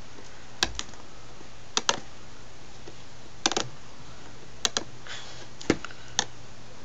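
Sharp clicks and taps, about ten of them and several in close pairs, from hands working at the plastic-wrapped packaging of an Apple wireless keyboard to get it open. A brief rustle comes about five seconds in.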